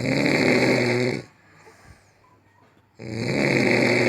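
A person snoring loudly: two long snores, the first right at the start and the second about three seconds in, each lasting about a second and a half with a low buzz.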